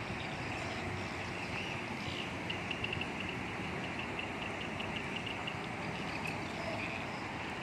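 Double-decker express coach's diesel engine running as the coach creeps forward into its bay, heard as a steady wash of engine and traffic noise. A run of faint high-pitched ticking comes in about two to five seconds in.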